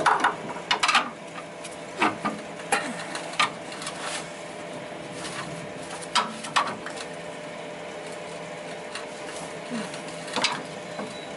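Scattered metal clanks and knocks from a pry bar being worked against the truck's front axle and frame to force the track bar into line, over a steady mechanical hum. The knocks come in a cluster in the first few seconds, then again after about six seconds and once more near ten seconds.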